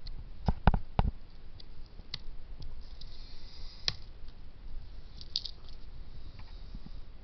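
Pruning shears snipping through a lemon tree stem to sever a rooted air layer: a quick cluster of sharp clicks between half a second and a second in, then further single snips, with a brief rustle of leaves as the branch comes free.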